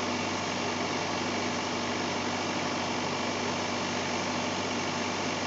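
Link-Belt excavator's diesel engine idling steadily.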